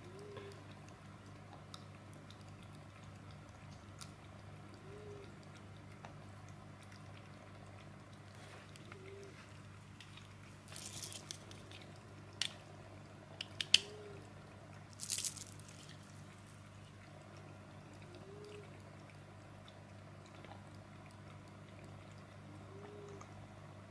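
A calico cat lapping water from a pet water fountain, with quick wet tongue strokes over a steady low hum; the lapping is loudest in a short run of splashy bursts around the middle.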